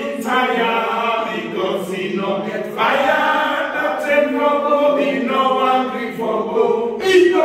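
A small group of people singing together unaccompanied. It is a Sierra Leonean schoolchildren's railway song, once sung on the train journey to Bo, set to a tune British listeners would recognise.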